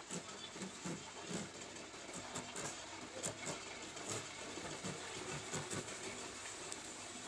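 Shirt cloth rustling and brushing on a cutting table as hands smooth and fold it flat, with irregular soft rubs and taps.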